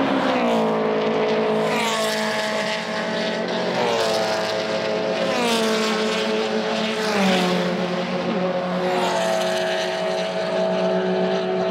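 Several race cars passing one after another down the straight, about six passes, each exhaust note dropping in pitch as the car goes by.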